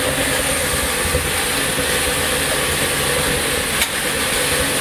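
Steam locomotive heard from inside its cab: a steady hiss of steam over a low, uneven rumble, with one sharp click near the end.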